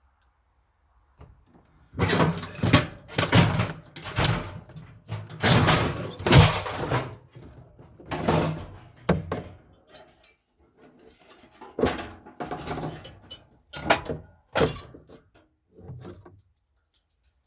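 Repeated knocks, bangs and scraping of metal and plastic refrigerator parts being wrenched and pulled apart by hand, in clusters from about two seconds in until shortly before the end.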